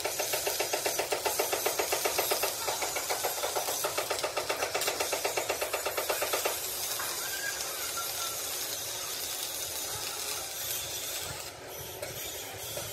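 A machine knocking rapidly at about six to seven beats a second, which stops about six and a half seconds in, leaving a steady hiss.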